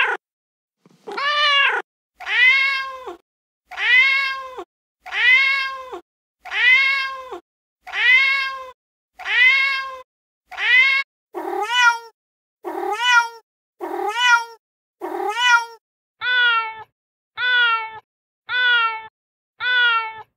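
Recorded domestic cat meows played from a cat-sounds app: about sixteen separate meows, roughly one a second. The call changes twice, about eleven seconds in and again about sixteen seconds in, as different meow recordings take over.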